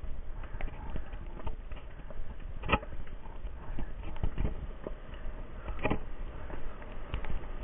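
Footsteps scuffing and knocking on a forest trail's dirt and stone steps, mixed with handheld-camera handling rumble, with two sharper knocks about three seconds apart.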